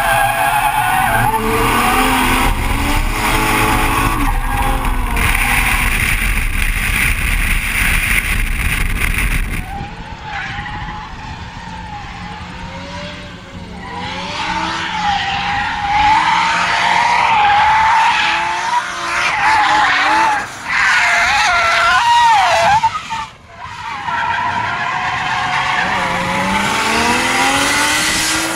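Nissan S13 with an RB30DET turbo straight-six drifting: engine held high in the revs while the rear tyres squeal and skid. For the first ten seconds it is heard from inside the car; after that it is heard from trackside, the engine note rising and falling as the throttle is worked, with a brief lift about two thirds of the way in.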